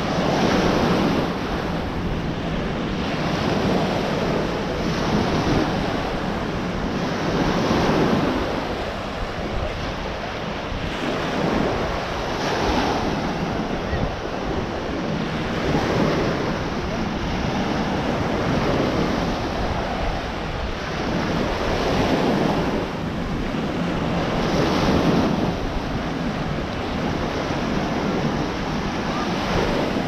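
Small ocean waves washing onto a sandy beach, the surf swelling and easing every few seconds, with wind buffeting the microphone.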